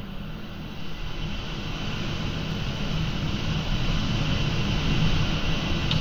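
Storm-force wind rushing through treetops, with gusts buffeting the microphone, growing steadily louder.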